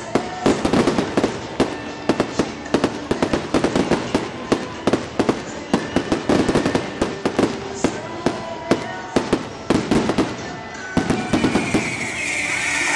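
Fireworks display: aerial shells bursting in a rapid, irregular string of sharp bangs and crackles. Near the end a ground fountain starts up with a steady hiss.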